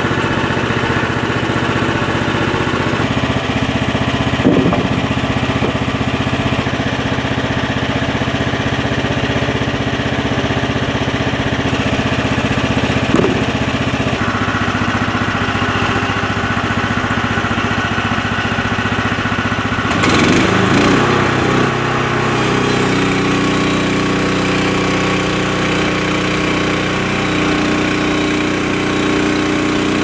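Portable band sawmill's 14 hp engine running under load while the blade saws a log, its note shifting a few times. About 20 seconds in there is a brief noisy burst.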